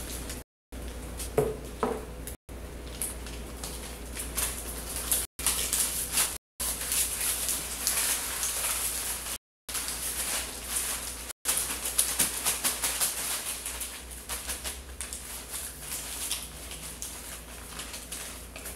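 Sticky paper crinkling and rustling as honey-coated banknotes and receipts are crushed and rubbed against the body by hand: a dense run of small crackles and clicks. The sound cuts out completely for a moment several times.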